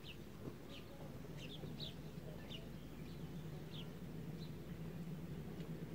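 Small bird chirping: short high chirps that drop in pitch, repeated irregularly about once a second, over a low steady hum.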